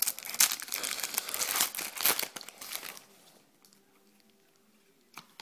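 Plastic wrapper of a basketball trading-card pack being torn open and crinkled for about three seconds, then it goes quiet.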